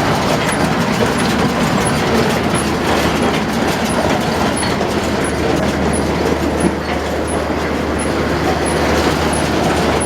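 New Holland 650 round baler running empty off a tractor's PTO: a steady mechanical clatter of its belts, rollers and chains over a low hum, with a light tick about every two-thirds of a second.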